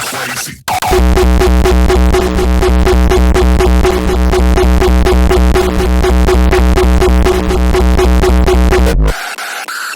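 Electronic dance music: a loud synth riff over a fast kick-drum pattern, which cuts off suddenly about nine seconds in to a thinner, noisy texture.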